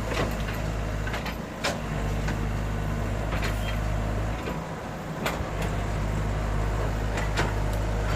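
Excavator's diesel engine running steadily, its low hum dipping briefly twice, with several sharp metallic clanks spaced a second or two apart.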